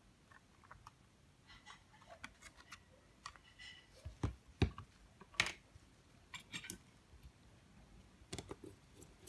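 Scattered small clicks and taps of a smartphone's removed back cover and frame being handled on a rubber repair mat, with a few louder knocks about halfway through and more light clicks near the end as a small screwdriver is brought to the frame.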